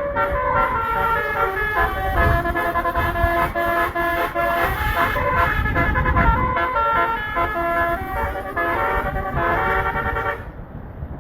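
Basuri 'telolet' multi-tone bus horn playing a quick tune of shifting notes over a low rumble. It cuts off suddenly near the end.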